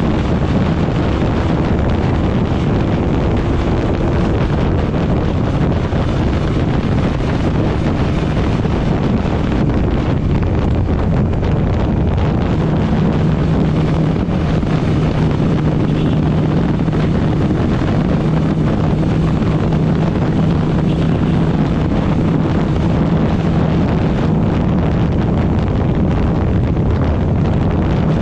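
Heavy wind noise on the microphone over a TVS Apache RTR 160's single-cylinder engine held at high revs at full throttle during a top-speed run, steady throughout.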